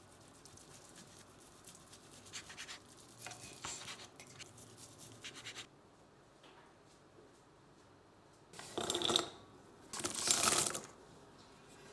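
Light scratching and scraping strokes, then two louder scraping, rustling bursts near the end.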